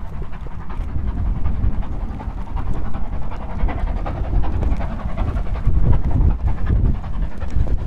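Wind buffeting the microphone in a loud, uneven rumble, with the breathy exhaust of a distant steam locomotive working along the line.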